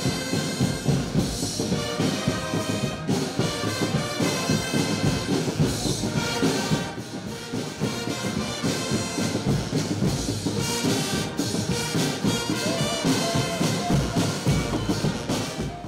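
Military marching band playing: brass instruments over drumbeats.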